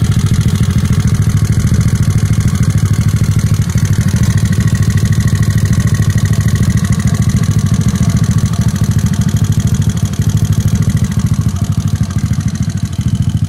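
Icebear Mad Dog scooter's single-cylinder engine, fitted with a 171cc big bore kit, running steadily at idle through an aftermarket muffler, on its first run after the big bore kit went in.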